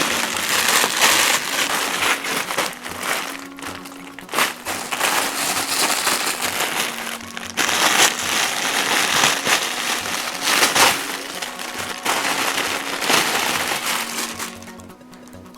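Plastic and cardboard packaging rustling and crinkling on and off as a plush toy is unwrapped, dying down near the end. A simple background tune plays quietly underneath.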